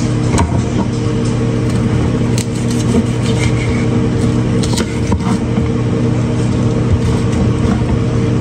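Knife and metal tongs clicking and scraping now and then on a wooden cutting board as grilled beef is cut, over a steady low mechanical hum.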